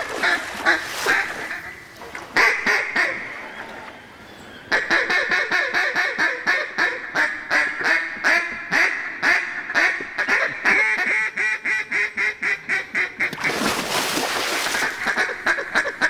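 Duck quacking in a long, rapid, even series. It starts about five seconds in and runs for roughly eight seconds, with a few scattered quacks before it. A brief rushing noise comes near the end.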